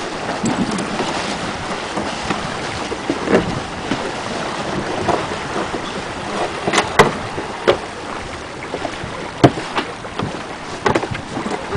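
Wind buffeting the microphone and water rushing past a sailing yacht's hull, with a steady rush throughout. Scattered sharp knocks and clicks, about half a dozen, stand out from the rush.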